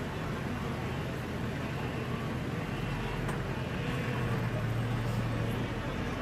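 Low steady hum of an idling vehicle engine, louder for a moment about four seconds in, over an even rush of river water as wildebeest splash across the crossing.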